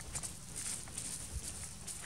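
Irregular footsteps rustling on dry leaf litter and gravel.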